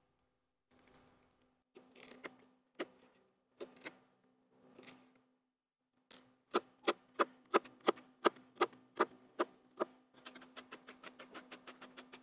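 Chef's knife working serrano peppers on a plastic cutting board: a few scattered cuts and scrapes as the seeds are removed, then a fine dice with even chopping strokes about four a second from about halfway in, quickening to a rapid run of light chops near the end.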